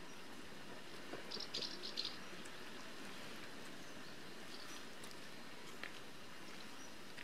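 Quiet wetland ambience: a steady soft hiss, with a short cluster of faint high ticks about a second or two in and a couple of single ticks later.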